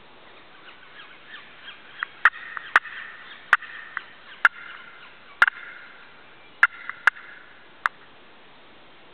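Wild turkey gobbling and calling: a run of sharp, loud notes, closest together between about two and five seconds in, with the last one near eight seconds.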